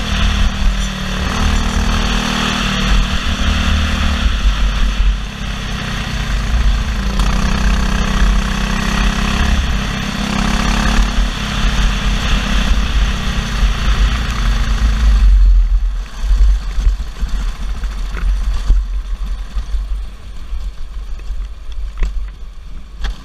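Briggs & Stratton LO206 single-cylinder four-stroke kart engine heard from on board the kart, revving up and down through the corners at racing speed. About two-thirds of the way through it drops off to a much quieter low-rev note as the kart slows.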